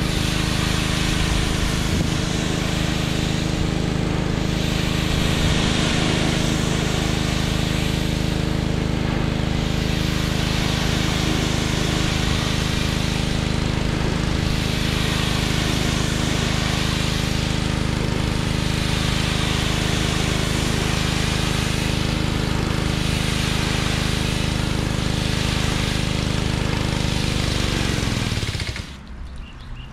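Gas-engine pressure washer running steadily, its water spray hissing against wooden siding and swelling every few seconds. Near the end the engine winds down in pitch and stops.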